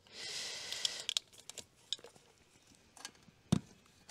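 Plastic lamp housing rubbing in its greased rubber grommet as an oval Truck-Lite stop/tail lamp is pressed into the mount: about a second of rubbing, then a few small clicks and taps, the sharpest about three and a half seconds in.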